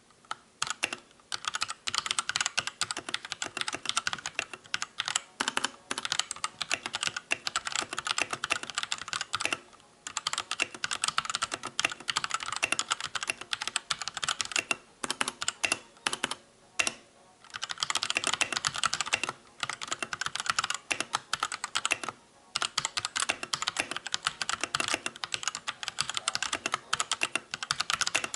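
Drevo Gramr V2 mechanical keyboard typed on quickly and without a break, a dense patter of key clacks that stops briefly about ten, seventeen and twenty-two seconds in.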